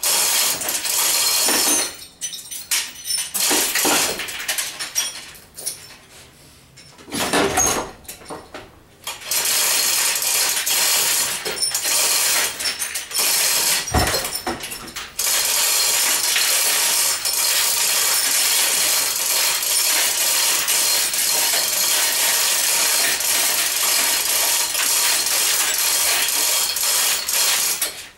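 Hand-operated chain hoist ratcheting and its chain rattling as it lifts an engine out of a car. It works in short bursts at first, then almost without pause from about ten seconds in until just before the end.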